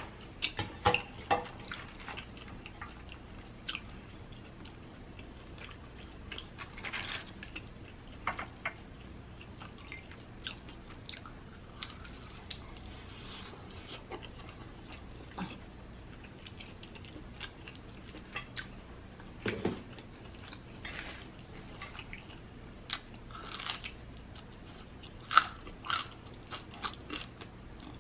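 A person biting and chewing crispy fried birria tacos, with irregular crunches from the crisp tortilla shell and chewing sounds in between.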